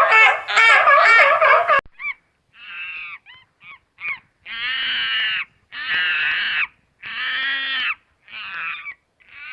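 A loud wavering call cuts off abruptly about two seconds in, followed by a bird's harsh calls repeated about once a second, each under a second long.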